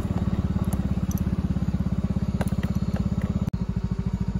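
Motorcycle engine idling at a standstill: a steady, evenly pulsing low beat, with a brief break about three and a half seconds in.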